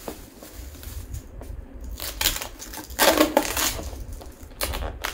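A round plastic takeaway tub being opened by hand: sealing tape peeled off and the snap-on plastic lid worked loose, giving irregular crinkling and rustling, loudest about three seconds in, with a few sharp clicks near the end.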